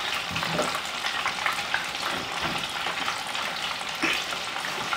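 Breaded cod pieces deep-frying in oil brought up to about 350°F, the oil bubbling hard with a steady fine crackle.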